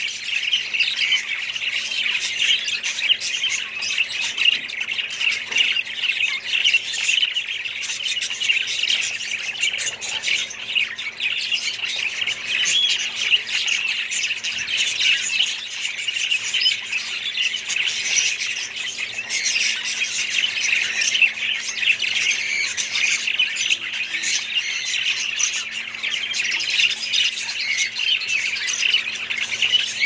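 Budgerigars in a caged colony chattering continuously, many birds calling at once in a dense stream of quick high chirps and squawks.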